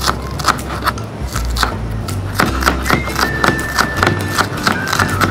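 Chef's knife slicing leeks on a cutting board: a quick, uneven run of knocks, about three or four a second, over background music.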